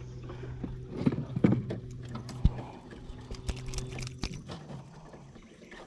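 Scattered knocks and clicks from handling in an aluminum boat while a small caught fish is held up and tossed back, over a steady low hum that stops about five seconds in.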